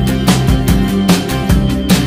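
Background music with a steady drum beat under held instrument notes.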